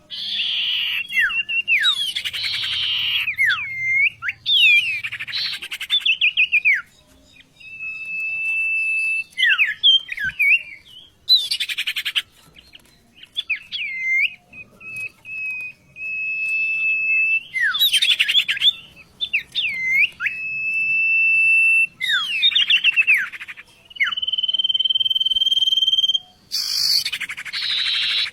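A songbird singing a long, varied song: bursts of rapid warbling and swooping notes alternate with long whistled notes held at one steady pitch, with short pauses between phrases. It is the kind of song kept as a tutor recording for training caged songbirds.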